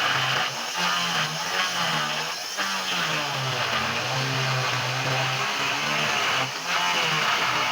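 Electric power tool working wood, its motor note dipping and recovering again and again as the load changes, with a rasping cutting noise over it.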